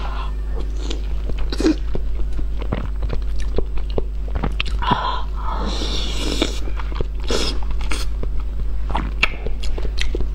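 Close-up mouth sounds of a woman chewing a mouthful of spicy seafood: wet smacks and small clicks throughout, with a longer hissing sound about halfway. A steady low hum lies underneath.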